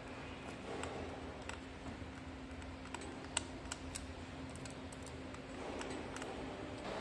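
Irregular light clicks and taps of a hand tool working a screw on the metal coupling between a greenhouse film roll-up motor's shaft and the roll-up tube, about a dozen in all, the sharpest about halfway through. A faint steady hum runs underneath.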